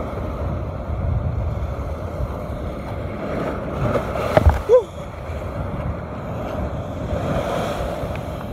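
Strong wind buffeting the microphone over surf washing on rocks. About halfway through come a couple of short knocks and a brief squeak.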